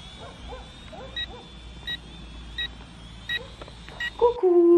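Small Archos quadcopter drone's motors whining steadily in flight, with short electronic beeps repeating about every 0.7 s. About four seconds in it cuts off to a woman's voice holding a hum.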